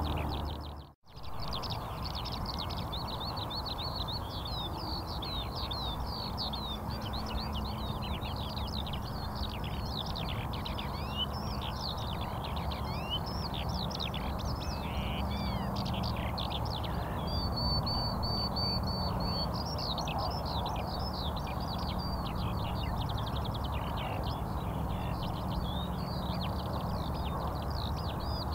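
Many small birds chirping at once, a dense stream of quick overlapping chirps over a steady background noise. The sound cuts out for a moment about a second in.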